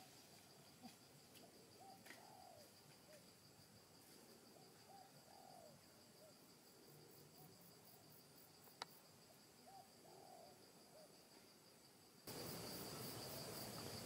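Faint outdoor ambience of insects chirring in a steady high drone, with a few soft calls that rise and fall and one sharp click about nine seconds in. Near the end the insect chorus suddenly becomes much louder, a shrill pulsing buzz.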